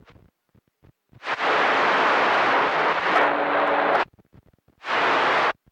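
CB radio receiver opening up on static: a loud hiss of noise switches on about a second in and cuts off sharply about three seconds later, with a faint steady tone buried in it near its end, then a second shorter burst of static that also cuts off. These are distant keyed transmissions coming in on skip too weak to carry readable voice, each ending in a squelch cut-off.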